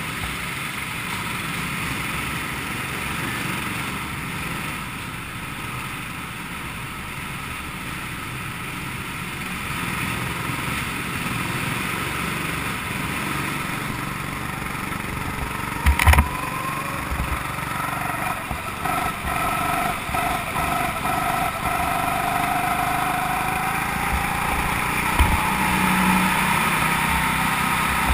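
Go-kart's small engine running, heard from on board as the kart drives the track, its note climbing through the second half. A single sharp knock about sixteen seconds in.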